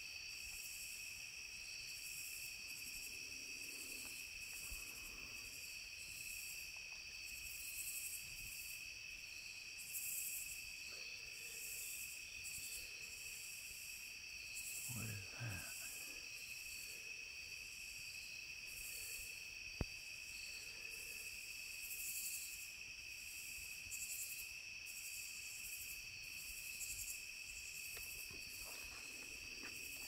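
Night chorus of crickets and other insects: a steady high trill with a faster pulsing buzz above it. A brief low sound comes about 15 seconds in, and a single sharp click about 20 seconds in is the loudest thing.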